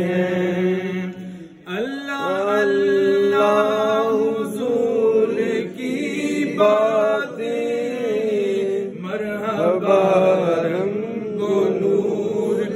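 A man's solo voice, with no accompaniment, chanting an Urdu salam to the Prophet in long, drawn-out melismatic notes. He pauses briefly for breath about one and a half seconds in, then starts a new phrase.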